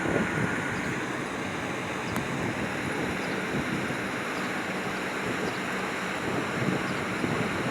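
Steady rushing noise from air-conditioning outdoor units, their fans running at an even level.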